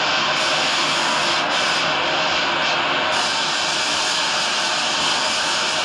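Steady loud rushing noise with a faint high whine running through it.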